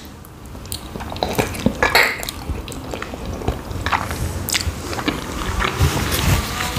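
Close-miked wet chewing and mouth sounds of someone eating small khinkali dumplings in cream sauce: a bite at the start, then chewing with many quick, sharp wet clicks.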